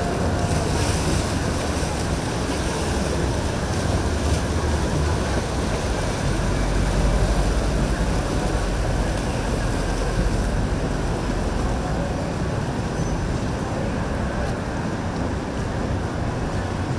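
Boat engine running at slow cruising speed, with water churning in its wake and wind on the microphone. The low engine rumble grows heavier around the middle, then eases.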